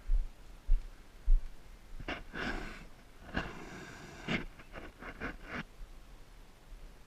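A person breathing hard, two long noisy breaths in a row, preceded by a few dull low thumps and followed by several light clicks.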